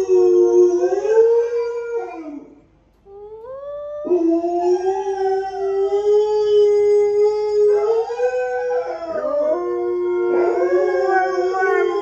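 Long, drawn-out wolf howls playing from a recording, with a short break about two seconds in and a rising note after it. In the last few seconds an Alaskan Malamute joins in, howling along so that the two howls overlap.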